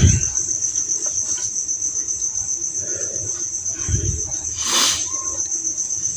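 A cricket trilling steadily at a high pitch. There is a soft low thump about four seconds in and a short hiss just after it.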